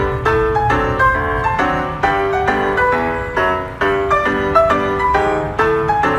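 Background music led by a piano, with notes struck in a quick, even rhythm.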